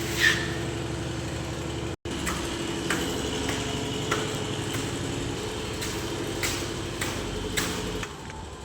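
An engine running steadily, with scattered clicks and knocks over it. It drops out for an instant about two seconds in and falls away near the end.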